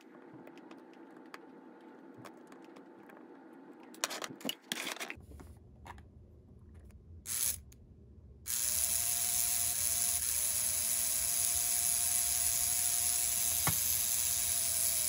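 Small electric motor of a model steam locomotive chassis running freely under power, turning the driving wheels and coupling rods with a steady whine that starts about eight and a half seconds in. Before it come a few light clicks of the wires and chassis being handled. The mechanism runs without binding.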